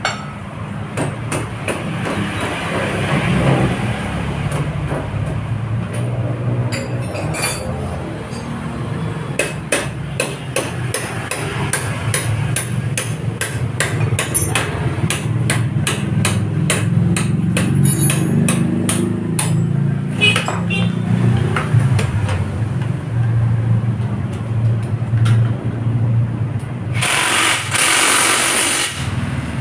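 Metal hand tools knocking and tapping on a Yamaha Mio scooter under repair, with a quick, even run of knocks about two a second through the middle. A brief harsh burst of noise comes near the end, over a steady low hum.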